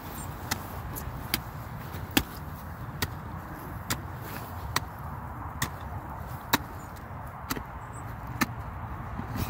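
Spade blade chopping down into turf and soil to dig out a rabbit burrow: a sharp strike about once a second, in an even rhythm.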